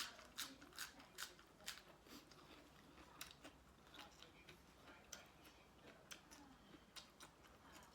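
Faint close-up chewing of spicy seafood papaya salad: a run of short wet clicks and smacks, irregular, one or two a second, the sharpest right at the start.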